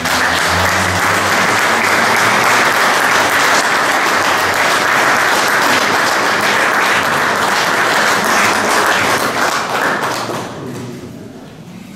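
Audience applauding steadily, then dying away about ten seconds in.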